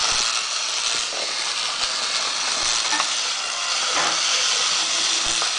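Small battery-powered toy train engine running along plastic track: a steady whir with faint scattered clicks.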